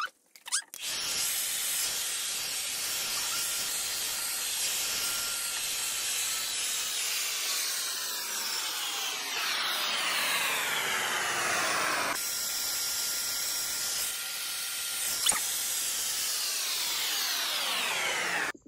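Hand-held electric hair dryer blowing steadily on wet hair, its hiss shifting in tone as it is moved around the head. It briefly breaks off about twelve seconds in, and there is a single sharp click about fifteen seconds in.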